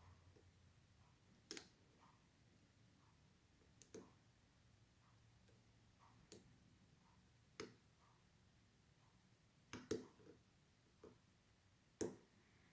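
Faint, sharp metal clicks, about eight at irregular intervals, from a lock pick and tension wrench working the pin stacks of an all-brass American padlock.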